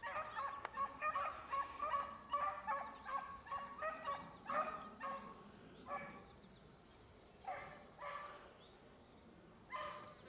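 Pack of beagles baying while running a rabbit track: a quick run of short bays over the first half that thins to a few scattered bays after about five seconds. A steady high insect drone runs underneath.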